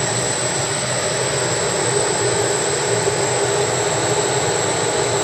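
Electrically driven machinery running steadily after being switched on at the control panel: a loud, even rushing noise with a low hum and a thin high whine.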